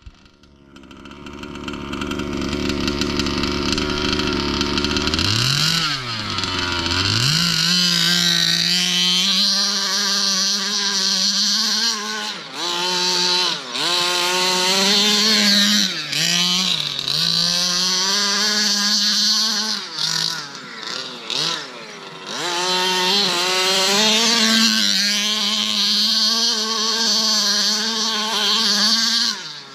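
Two-stroke gas engine of a 1/5-scale RC buggy revving. Its pitch swings up and down with the throttle, then it holds at high revs, with several brief drops when the throttle is let off.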